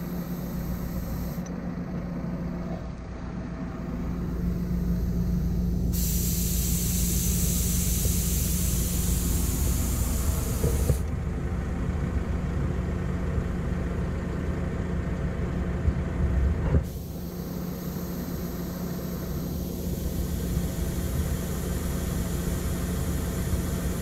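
Tractor engine running steadily, with a loud hiss for about five seconds partway through.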